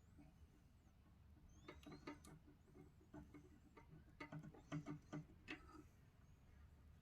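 Near silence with faint clicks and light rubbing in two short clusters, about a third and two thirds of the way through, from a cotton swab and fingers working the plastic of a disassembled PS5 controller's joystick housing.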